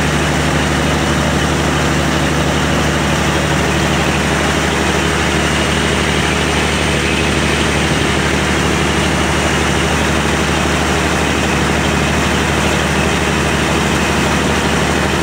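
Boat engine running steadily underway: a low, even drone with a constant rushing hiss over it.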